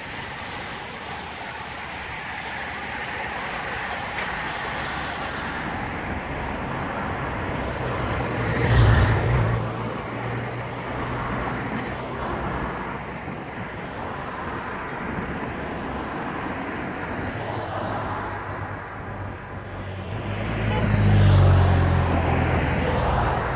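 Motor vehicles passing close by over steady road noise: one passes about nine seconds in, and a motorcycle goes by near the end, its engine loudest there.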